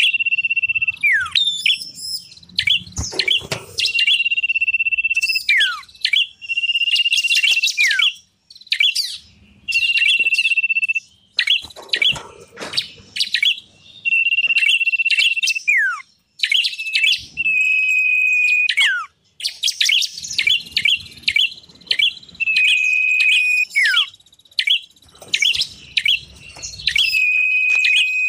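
Small songbirds calling in a bird-lure recording. A clear whistle is held level for about a second and repeated many times, often ending in a falling slur. Rapid high chirps and trills fill the gaps between the whistles.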